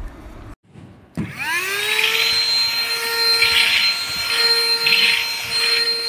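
HAN RIVER HRXCQ03WT cordless stick vacuum switched on about a second in: its motor spins up with a rising whine, then settles into a steady high-pitched run. Swells of suction hiss come and go as the head is pushed over a carpet mat.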